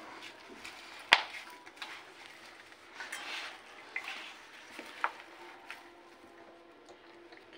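Hands kneading a crumbly dough of wheat flour, grated radish and fenugreek leaves in a steel bowl: soft rubbing and squishing, with a few sharp clicks on the bowl, the loudest about a second in.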